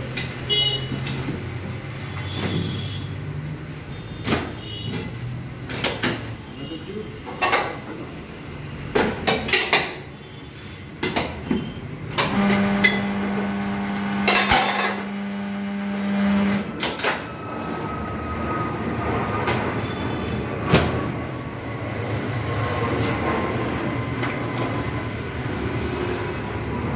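Tyre changing machine in use: scattered knocks and clanks as a tyre and inner tube are handled on the turntable, and about twelve seconds in the machine's turntable motor runs with a steady hum for about four seconds while the tyre is worked off the rim.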